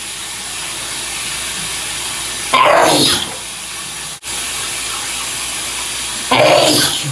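A man sneezing twice, loudly, over the steady hiss of a running shower; the sneezes come about four seconds apart.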